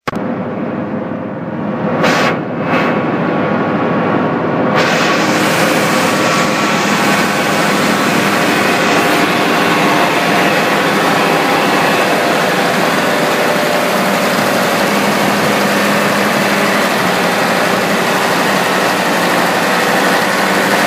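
Cambio 45 mobile ring debarker running, a steady machine drone with several steady tones; a loud hiss joins it about five seconds in and carries on.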